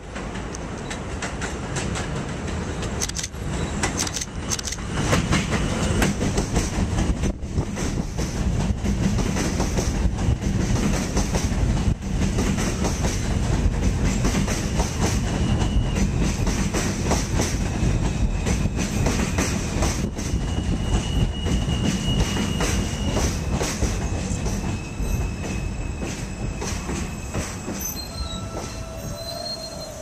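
Subway train pulling into an elevated station: steady rumble and fast clatter of wheels over the rail joints, with high wheel squeal in stretches as it takes the curve. It grows loud after a few seconds, then quietens toward the end as the train slows to a stop.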